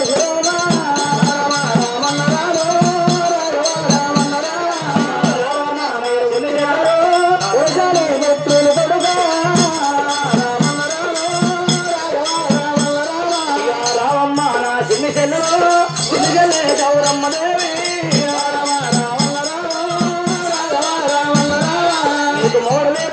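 Telangana Oggu Katha folk music: a wavering melody over steady rhythmic percussion with a rattling jingle.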